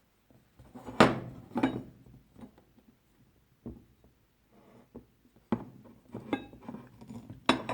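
Metal hand tools being handled and put down: several separate knocks and clinks, some with a short metallic ring, the loudest about a second in.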